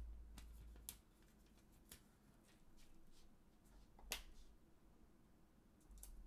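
Hands handling a small clear plastic storage box and a paper label: a few faint, scattered clicks and taps, the sharpest about four seconds in.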